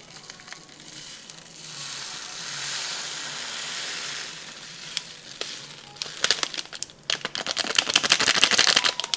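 Thin plastic snack bag crinkling in the hands while sprinkles are shaken out of it: a soft rustling hiss at first, then a dense, louder crackle of crinkling in the last few seconds.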